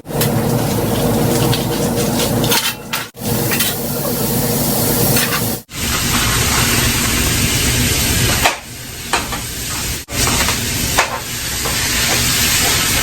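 Ground beef sizzling steadily in a hot pan with a little water, a dense frying hiss broken by a few abrupt short gaps.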